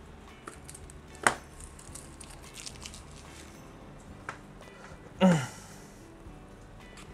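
Handling of a PC case fan and its packaging: scattered small clicks and light crinkling, with a sharp knock about a second in. About five seconds in comes the loudest sound, a short squeak falling in pitch.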